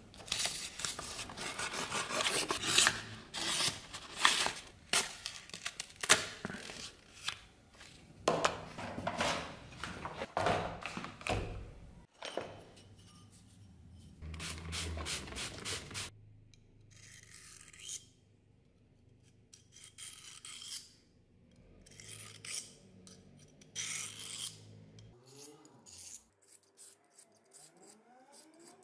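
A steel knife blade rubbing and scraping in quick, repeated strokes for about twelve seconds, then only quieter, scattered handling sounds with pauses.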